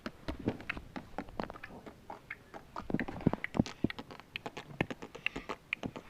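A cat crunching dry cat treats: a quick, irregular run of small crunches and clicks.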